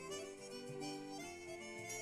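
Quiet background music: a melody of held notes on a reed- or harmonica-like instrument, changing pitch every few tenths of a second.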